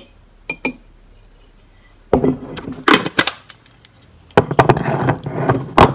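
Light clinks of a glass coffee jar and metal spoon against a ceramic mug as instant coffee is shaken in, then a run of louder knocks and scraping handling noises on the kitchen counter about two seconds in and again near the end.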